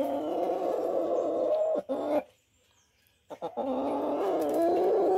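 Light Brahma chicken giving long, drawn-out, wavering calls as it is stroked: one of nearly two seconds, a short one, a pause of about a second, then another long call near the end.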